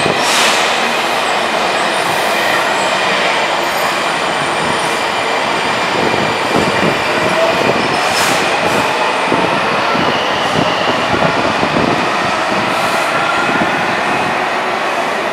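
Washington Metro 2000-series train pulling into an underground station and slowing to a stop: steady wheel and track rumble with a faint whine that shifts in pitch, and a few short hisses.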